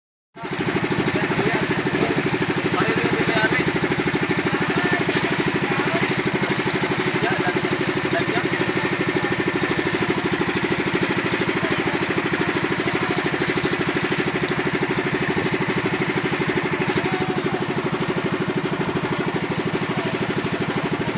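Boat engine running steadily at a constant speed, a fast, even chugging.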